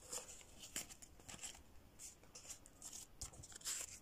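Faint, scattered rustling and crinkling of Kenyan shilling banknotes and the envelopes of a cash-stuffing binder being handled as the counted notes go into an envelope.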